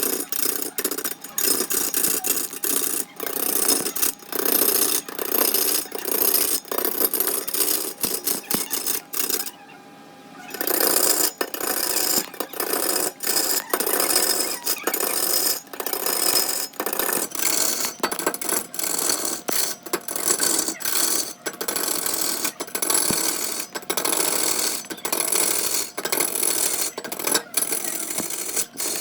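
A turning tool cutting into wood spinning on a large wood lathe: rough, continuous scraping with many sharp knocks and catches, pausing for about a second some ten seconds in.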